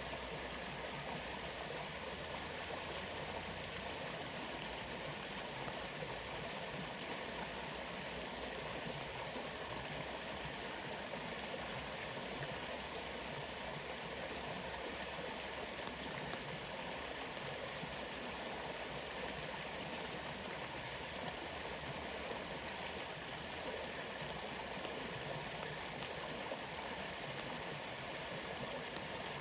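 Waterfall rushing steadily: an even, unbroken wash of falling water that stays at one level throughout.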